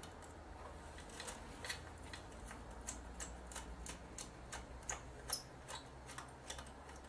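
Faint, irregular small clicks and ticks of a small screwdriver working out the tiny silver screws that hold in the LCD screen of a Sony PMW-EX3 camcorder, about two or three a second, over a low steady hum.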